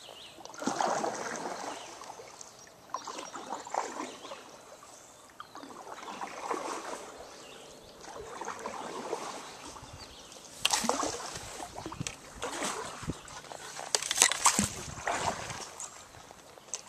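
Kayak paddle strokes dipping into and pulling through calm river water, a stroke every two to three seconds, with splashing and dripping off the blades. A couple of louder, sharper splashes come about eleven and fourteen seconds in.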